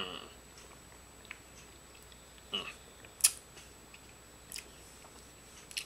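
A few scattered crunches and clicks, typical of someone chewing crunchy potato-stick snacks with pauses in between.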